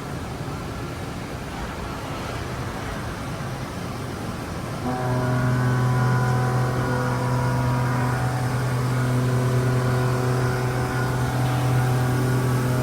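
Haas EC-400 horizontal machining center running, a steady mechanical hum that steps up to a louder, steady pitched drone about five seconds in.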